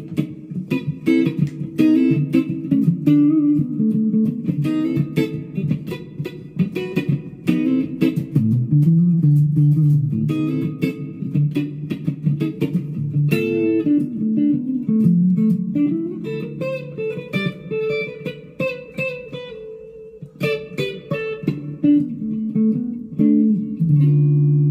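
Leo Jaymz SG-copy electric guitar played on its neck humbucker through an amp: a run of picked single notes and chords, ending on a chord left ringing near the end.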